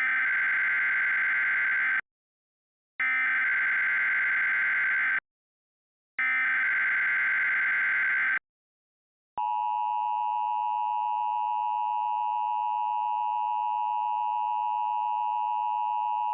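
Emergency Alert System tones. Three bursts of SAME header data, each about two seconds long with a second's pause between, are followed about nine seconds in by the steady two-tone EAS attention signal.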